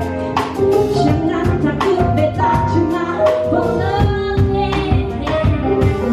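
A woman singing with band accompaniment over a steady beat of about two strikes a second.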